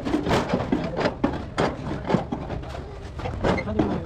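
Thin galvanized steel sheet being unrolled and flexed by hand, giving irregular sharp metallic crackles and taps, a few a second, easing off briefly about two seconds in.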